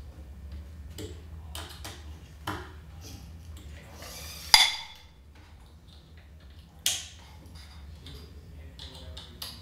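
Small metal parts clicking and tapping as screws and a gimbal mount plate are handled and fitted to a multirotor frame, with the sharpest click about four and a half seconds in. A steady low hum runs underneath.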